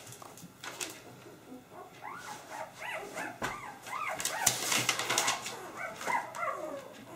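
Young Drentsche Patrijshond puppies whimpering and squealing in many short, rising-and-falling cries that overlap, starting about two seconds in. A few light clicks and rustles come from handling on the table.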